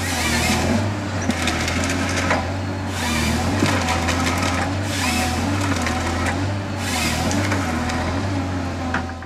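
Rottne H20 forestry harvester processing a tree: the head's feed rollers and delimbing knives crackle and splinter through the trunk and branches in repeated bursts every second or two, over the steady hum of the diesel engine and a hydraulic whine that rises and falls.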